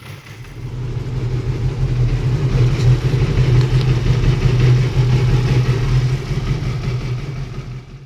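Yamaha R6's inline-four engine idling steadily while warming up from a cold start, just after a clutch rebuild meant to cure a rattling clutch basket. It gets louder about a second in, then holds steady.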